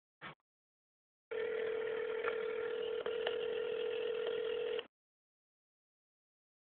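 Telephone ringback tone played through a phone's speakerphone while an outgoing call rings through: one steady tone lasting about three and a half seconds, after a brief tap near the start.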